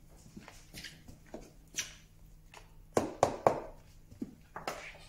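Handling noises of someone moving about a workshop: scattered light knocks and scuffs, with a quick run of three louder knocks about three seconds in.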